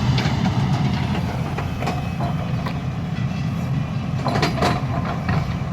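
Heavy diesel engine running steadily, with scattered metallic clanks and knocks, several close together about four seconds in.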